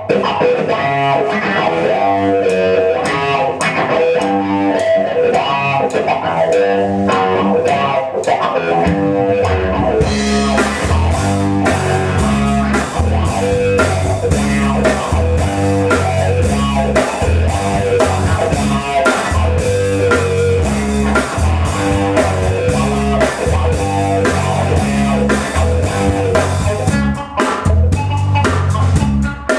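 Live instrumental rock-funk played by a small band: electric guitar over a drum kit. About ten seconds in, a deep bass part comes in and the sound fills out.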